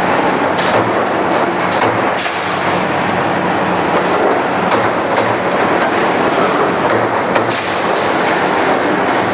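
Automatic punching machine for iron plate running at speed: a loud, steady mechanical din with a regular low beat and a few sharp metallic clicks.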